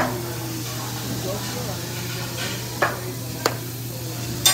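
Food sizzling on a hibachi flat-top griddle, with several sharp metal clanks of the chef's spatula against the steel: one at the start, two about three seconds in, and one at the end. A steady low hum runs underneath.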